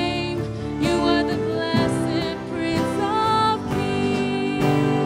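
Live worship-band music: sustained held notes over accompaniment, with strummed acoustic guitar, as the song carries on past its last sung line.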